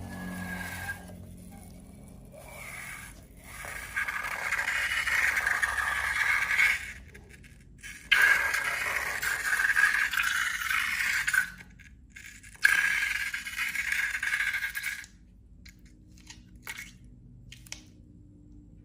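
Slime being scraped and worked in a container, in three long scraping strokes of a few seconds each with short pauses between, then a few light clicks of handling near the end.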